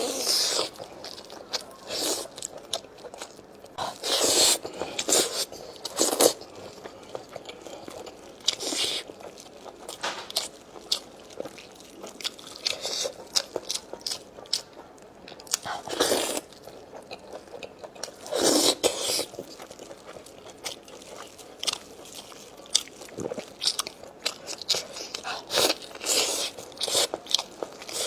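A person eating braised lamb neck and lamb trotters close to the microphone: irregular bites and chewing, with louder crunches about 4, 16 and 19 seconds in.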